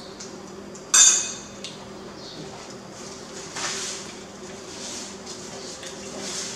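A metal spoon clinks sharply against a ceramic plate about a second in, ringing briefly. It is followed by softer scraping and rustling of dishes and cutlery.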